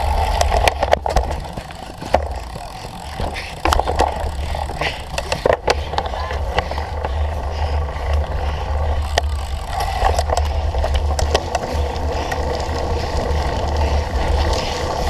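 Cyclocross bike being ridden hard over rough ground: tyres rolling with a steady low rumble, and the chain and frame rattling and clicking over bumps.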